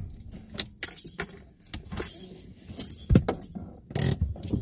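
Light metallic jingling with irregular sharp clicks and knocks, the strongest knock about three seconds in.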